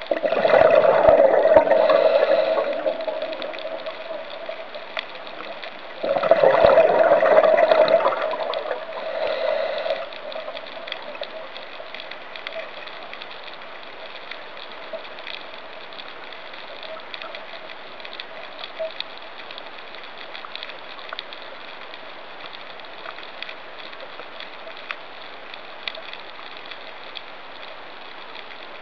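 A scuba diver's exhaled bubbles gurgling up from the regulator, two breaths: one at the start lasting about three seconds, another about six seconds in lasting about four. Between and after them, a steady underwater hiss with scattered faint clicks.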